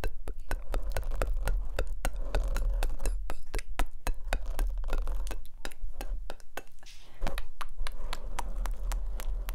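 Close-miked ASMR mouth sounds: a fast run of sharp mouth clicks and pops, several a second, moving from one microphone to the other near the end, over a low rumble.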